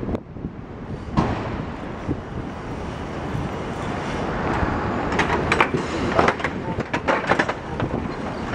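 Busy city street: steady traffic noise, with a cluster of short sharp knocks and clatters between about five and seven and a half seconds in.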